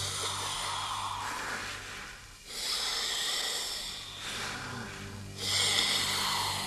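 A man breathing heavily through a face mask: three long, harsh breaths, one after another, over a low steady drone.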